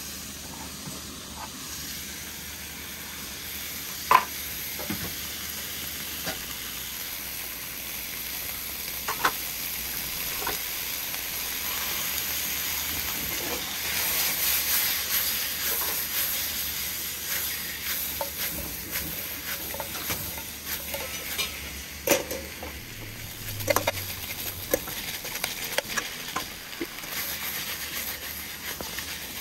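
Cabbage and pork stir-frying in an iron wok over a single gas burner. Steady sizzling, with the metal spatula scraping and clanking against the wok as the food is tossed. The sizzle grows louder about halfway through.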